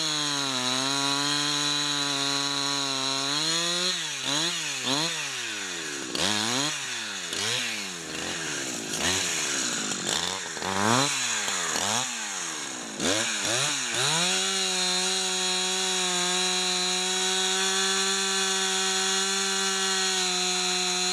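Husqvarna 372XP two-stroke chainsaw, rebuilt with Chinese aftermarket parts, cutting a small tree. The engine pitch sags under load at first, then for about ten seconds the revs swing rapidly up and down, then it runs steady at high revs for the last several seconds. The owner thinks it is running lean on the high-speed (H) screw.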